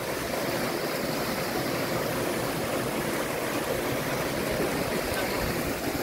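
Small waterfall pouring down a narrow rock cleft into a pool: a steady, even rush of falling and splashing water.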